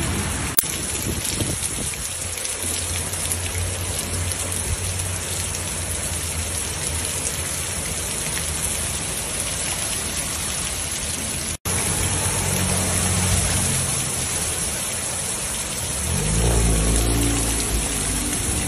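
Heavy rain pouring onto a flooded street, a steady dense hiss of drops hitting standing water. It breaks off abruptly once partway through, and a low rumble rises under the rain near the end.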